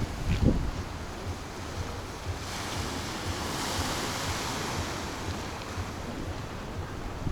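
Sea waves washing onto the shore, one wave's hiss swelling about two and a half seconds in and fading a few seconds later, with wind buffeting the microphone.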